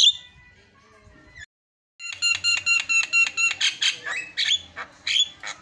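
Javan myna (jalak kebo) singing its filler song of imitated calls. After a pause of about two seconds, it delivers a fast run of repeated sharp notes, about five a second, then more varied calls.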